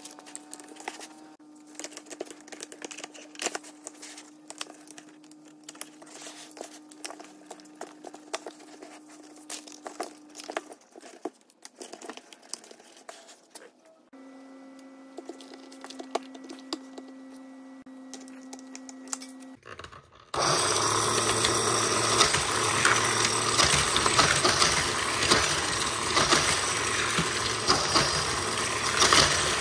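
Plastic toy race track pieces clicking and snapping together as they are fitted, then about twenty seconds in the track's motorized speed booster switches on and runs with a loud continuous whirring and plastic rattling.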